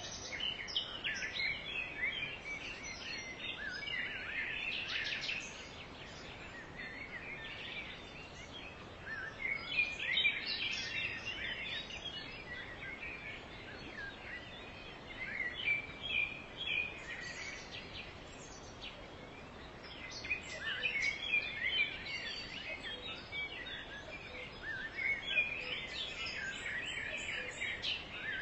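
Songbirds chirping and singing in bursts of quick high notes, with short lulls between, over a steady background hiss.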